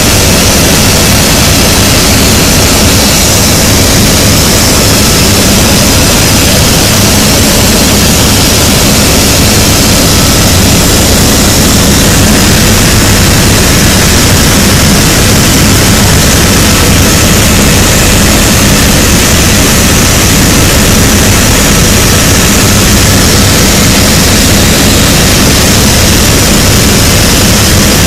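Helicopter in flight heard from inside the cabin: engine and rotor noise, very loud and steady, a dense hiss over a low hum with no change.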